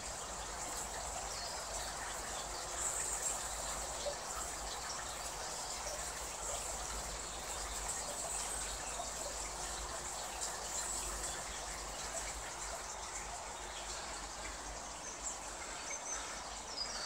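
Steady trickling and bubbling of pond water under the koi pond's covers.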